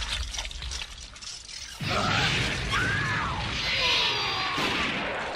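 Anime film soundtrack playing through a reaction stream: about two seconds in, a loud crashing, breaking sound effect with a deep rumble and sliding tones over it, easing off near the end.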